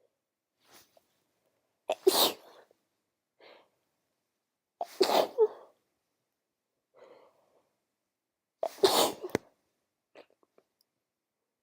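A woman sneezing with a head cold: three full sneezes a few seconds apart.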